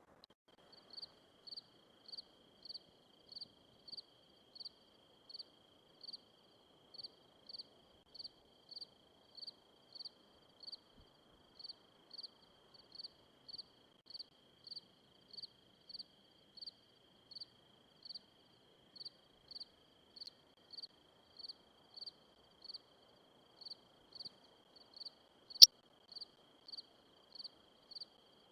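A cricket chirping steadily, about one and a half chirps a second, over a faint steady high whine. A single sharp click near the end.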